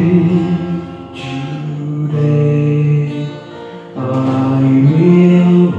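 Male choir singing a hymn in harmony with instrumental accompaniment, holding long notes; the sound drops back briefly about a second in and again after about three and a half seconds before the voices swell back in.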